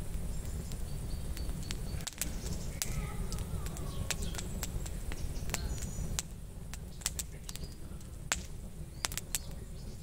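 Wood fire crackling with sharp, irregular pops over a steady low rumble that eases about six seconds in, with birds chirping faintly.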